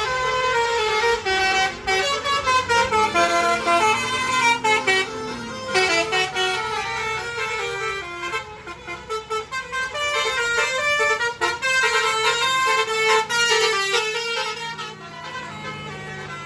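Bus basuri "telolet" musical horns playing rapid melodies: strings of short notes that step up and down in pitch, several tones at once, with brief breaks, easing off near the end.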